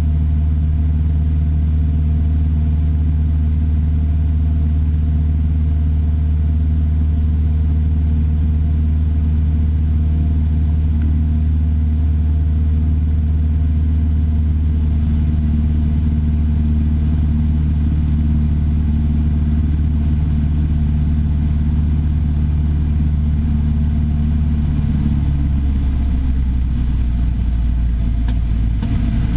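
Piper Warrior III's four-cylinder Lycoming engine and propeller droning steadily at constant power; about 25 seconds in the engine note changes and drops as the power setting changes.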